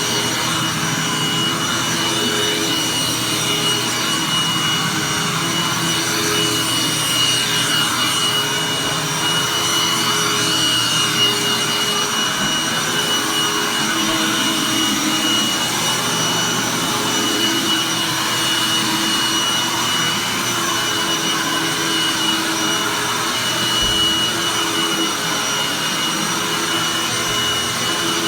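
Vacuum cleaner running steadily with a constant high-pitched whine over its rushing suction noise. The lower motor tone wavers now and then as the vacuum is worked over the floor.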